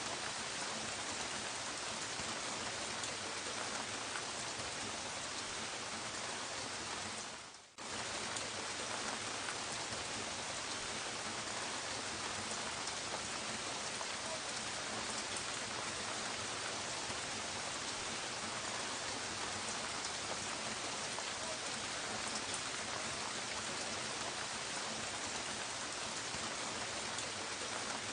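Soft, steady rain falling in a dense, even patter. About seven seconds in it fades away for under a second, then comes back abruptly.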